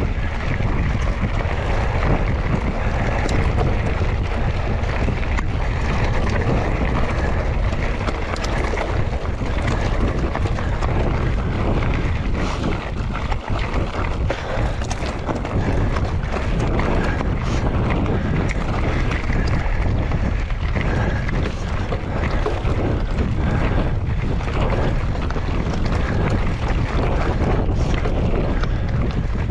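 Wind noise on the microphone over a mountain bike rolling down a rough trail: a constant rumble of tyres and frame with many sharp knocks and rattles from bumps.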